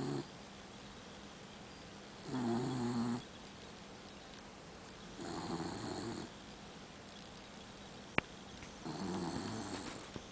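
Dachshund mix snoring in her sleep: three snores about three seconds apart, each lasting about a second. A single sharp click comes between the last two snores.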